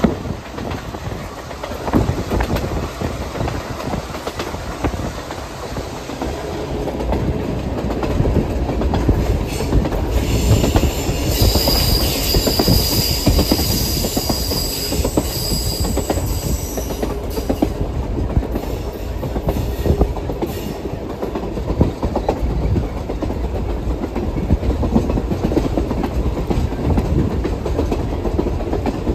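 Passenger train rolling over jointed rail, its wheels clicking over the rail joints above a steady rumble. A high wheel squeal rings for several seconds near the middle.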